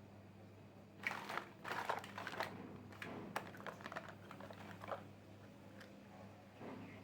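Small plastic miniature toy pieces clicking and tapping as they are handled, a quick irregular run of clicks with light rustling that starts about a second in and thins out after about five seconds.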